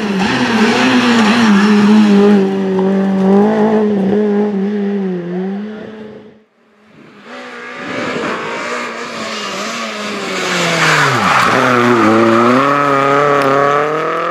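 Renault Clio Williams Group A rally cars' 2.0-litre 16-valve four-cylinder engines revving hard through corners: two passes split by a sudden cut. In the second, the revs drop sharply about eleven seconds in, then climb again.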